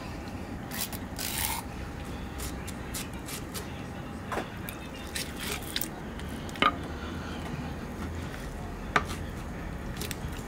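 Eels being filleted with a knife on a wooden cutting board: scattered taps, clicks and scrapes, with a short hiss about a second in and two louder sharp clicks in the second half, over a steady low hum.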